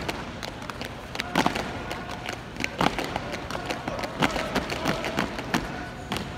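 An unarmed drill platoon's routine: sharp hand slaps and boot stamps, coming in quick clusters every second or so.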